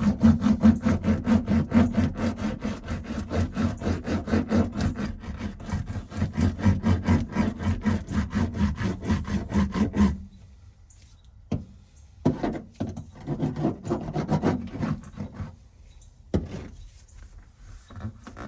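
Hand roller worked rapidly back and forth over sound deadening mat to press it flat, a fast rhythmic rubbing of several strokes a second. It stops suddenly about ten seconds in, then comes back in a few shorter runs.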